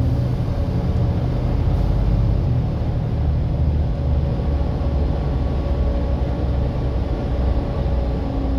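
Volvo B7TL double-decker bus running, a steady low engine rumble with a faint steady whine above it, the 'hoovering' sound these buses are known for.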